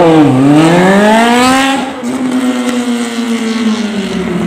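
Sport motorcycle accelerating past, its engine note climbing with the revs. About two seconds in the note breaks at a gear change and gets quieter, then holds steady and slowly falls as the bike pulls away.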